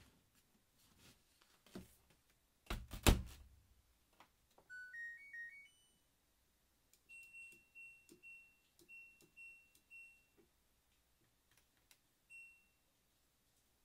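Front-loading washing machine: the door shuts with a loud thump about three seconds in, then a short rising power-on chime of stepped beeps, a run of single beeps about every half second as the cycle dial is turned, and one more beep near the end as a panel button is pressed.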